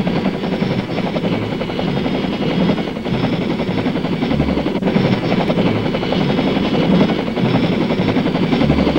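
Sikorsky CH-54A flying crane helicopter hovering overhead: a steady, rapid rotor beat with a faint high whine.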